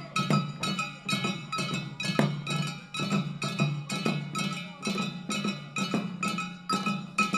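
Jangara nenbutsu odori music: small chest-slung taiko drums and hand-held kane gongs struck together in a steady beat, about two to three strokes a second, the gongs ringing on between strokes.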